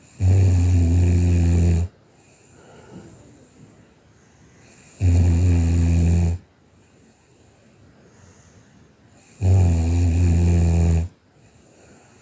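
A person snoring in sleep: three long, loud snores about four and a half seconds apart, each lasting about a second and a half with a steady low buzz.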